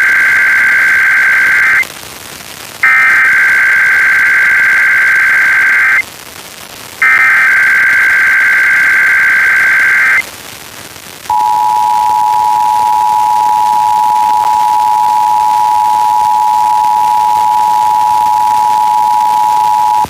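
Emergency Alert System SAME header: three bursts of buzzy digital data tones, each about three seconds long with a second's gap between them, the first already under way. About eleven seconds in, the steady two-tone EAS attention signal (853 and 960 Hz) starts, marking the opening of a required weekly test alert on radio.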